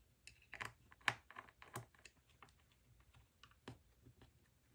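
A small Torx screwdriver clicking and ticking as it loosens the T5 Torx screws holding the fan of an M2 Mac Mini: a string of faint, irregular clicks, the loudest about a second in.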